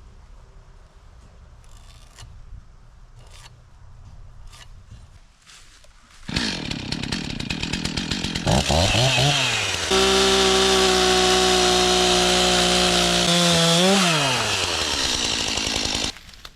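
Two-stroke chainsaw starting up about six seconds in, revving, then held at steady high revs for a few seconds. It revs up and down again and cuts off suddenly near the end. A few light knocks come before it.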